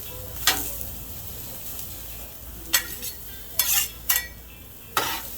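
Diced onions and serrano peppers sizzling steadily in oil on a Blackstone flat-top griddle, turning golden brown. Several sharp metal scrapes and clicks cut in, the loudest about three and a half to four seconds in, as they are stirred on the steel surface.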